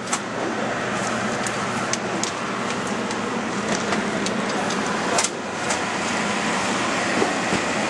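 Shrink-wrap heat tunnel running: a steady blower rush with scattered clicks and clacks from the machinery, the loudest clack about five seconds in.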